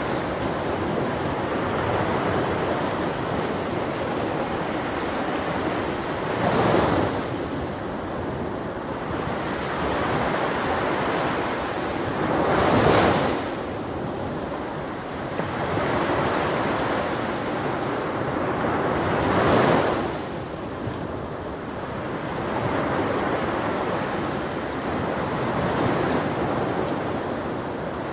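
Ocean surf on a beach: a steady rush of water with waves breaking every six or seven seconds, three of them louder than the rest.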